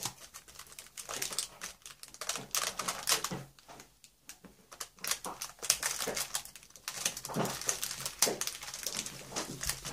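Cellophane and plastic packaging of craft supplies crinkling and crackling as it is handled, in dense irregular clicks. A dog whines briefly a couple of times near the end.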